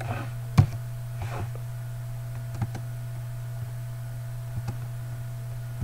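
A few scattered computer mouse clicks, the loudest about half a second in, over a steady low hum.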